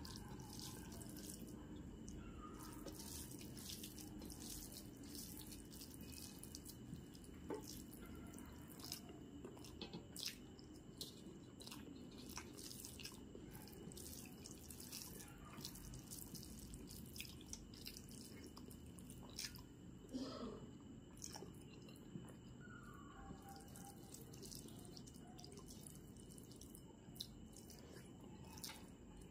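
Faint eating sounds: many short, wet mouth clicks while chewing basanti pulao, with fingers squishing the rice and curry together on a metal plate.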